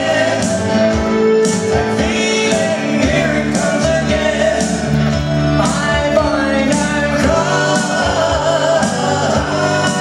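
A live pop-rock band playing: electric guitar, bass guitar and keyboards with male singing, in a steady beat.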